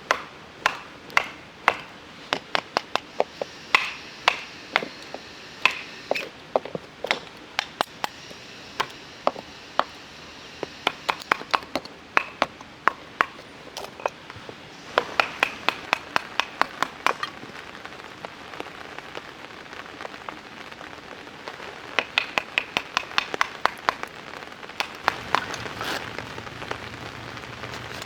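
Rain falling on a tarp: large drops land as sharp, irregular taps, often several in quick succession, over a steady hiss of rain.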